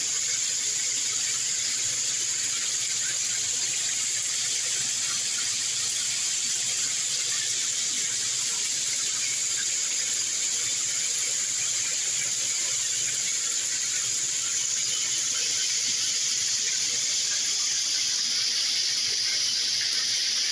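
Water spraying steadily from a 10-inch square rain shower head, an even, unbroken hiss of falling water.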